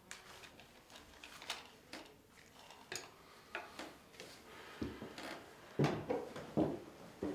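Scattered light clicks and knocks of small objects being handled, with a few heavier thumps in the last couple of seconds.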